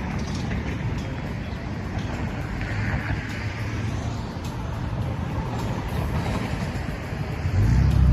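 Steady city road traffic: a low rumble of passing cars and larger vehicles. A louder low rumble sets in near the end.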